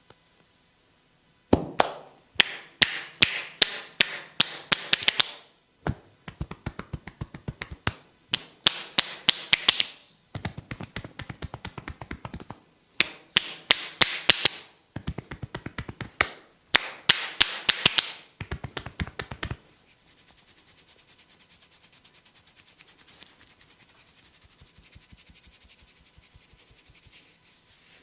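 Hands tapping rapidly and rhythmically on a person's head during a head massage. The tapping comes in several bursts of a few seconds each, some louder than others, then turns into a softer, quicker patter for the last several seconds.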